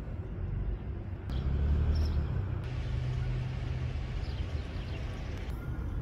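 A motor vehicle's engine running close by: a low rumble that grows louder about a second in and eases off a few seconds later, over steady low street noise.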